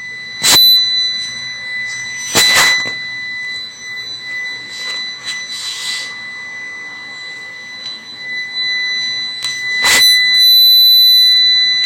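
UPS alarm sounding one continuous, high-pitched, unbroken beep, the sign that its battery is dead and no longer holds a charge. Three sharp knocks sound over it: one under a second in, one between two and three seconds, and the loudest about ten seconds in.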